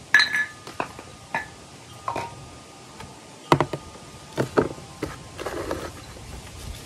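Terracotta pots and a clay saucer knocking and clinking as they are handled and set down in a plastic potting tray: a series of sharp knocks, some with a brief ring. A short scraping rustle follows about five seconds in as the begonia's root ball is handled.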